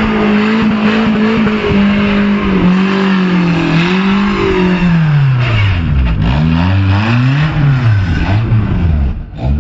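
An off-road vehicle's engine working hard: held at high revs for about five seconds, then revved up and down repeatedly, with a rushing noise beneath it.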